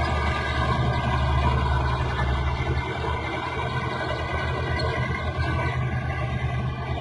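Bulldozer's diesel engine running steadily with a low, rapidly pulsing rumble.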